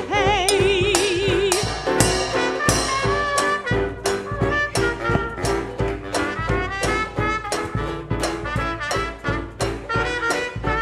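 A swing band with brass plays an up-tempo number with a steady beat. It opens on a long held note with a wide vibrato, and horn lines carry on over the rhythm.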